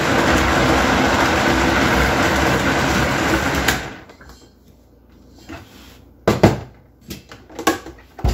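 Vitamix blender motor running at high speed, mixing eggs and milk, then switched off about four seconds in and quickly spinning down. A few sharp knocks follow, the loudest about two seconds later, as the blender is handled and the container lifted off the motor base.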